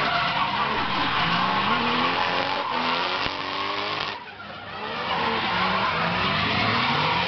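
Drift cars sliding sideways, engines revving hard in repeated rising sweeps over a steady screech of tyres. A little past halfway the sound drops away for about half a second, then the revving and tyre noise pick up again.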